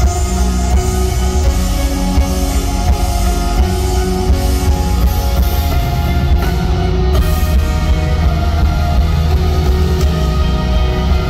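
Live rock band playing loud in an arena: electric guitars, bass and a drum kit keeping a steady beat, heard from the audience through a phone microphone.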